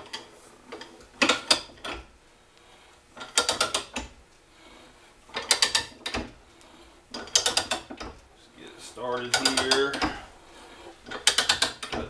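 Ridgid ratcheting hand pipe threader cutting a tapered thread on steel pipe: the ratchet pawl clicks in a quick run each time the handle swings back, six times at about two-second intervals. A short squeal sounds around nine seconds in.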